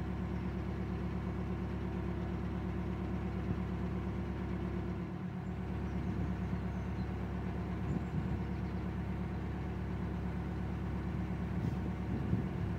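A narrowboat's inboard diesel engine running steadily as the boat moves along, with a brief dip in the low end about five seconds in.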